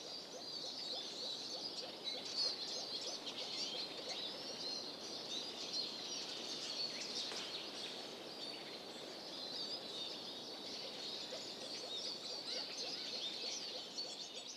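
A chorus of small songbirds, many short high chirps and trills overlapping without a break, over a steady faint hiss of outdoor ambience.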